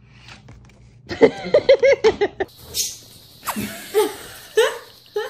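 A person laughing in a quick run of bursts. Then a cat gives three short meows, each falling in pitch.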